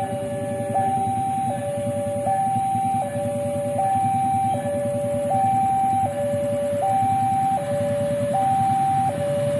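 Railway level-crossing warning alarm sounding its two-tone signal, alternating a higher and a lower tone about every three-quarters of a second, the sign that the crossing is closed for an approaching train. A low rumble runs beneath it.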